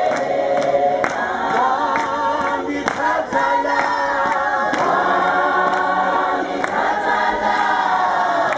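A crowd of many voices singing together like a choir, steady throughout, with sharp clap-like strikes now and then.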